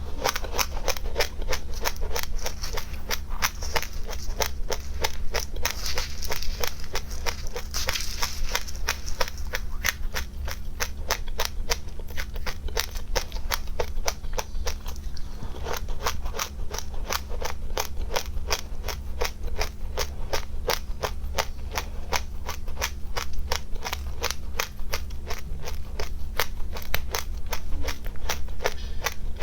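Crunchy seeds being chewed close to the microphone: a rapid, steady crunching of crisp clicks about four a second, with a short pause about halfway through.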